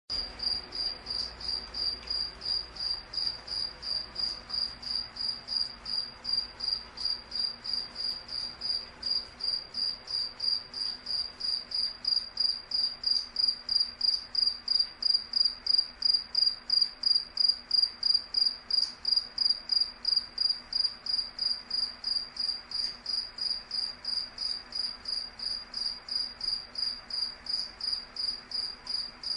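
Cricket chirping in a steady, even rhythm, about three high-pitched chirps a second.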